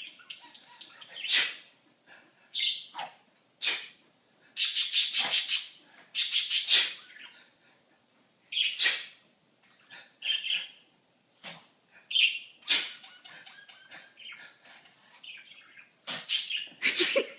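A pet bird sneezing over and over, a dozen or so short, sharp bursts with a few longer clusters of them, and faint chirps between.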